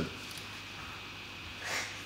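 Quiet room tone with a faint steady hum, and one short hiss near the end.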